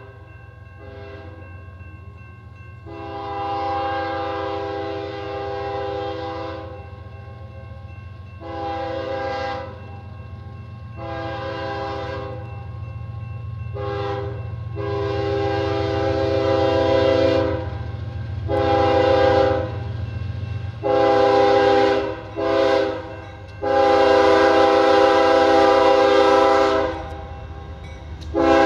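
Diesel freight locomotive's air horn sounding a series of long and short blasts, growing louder, over the steady low rumble of the locomotive and train.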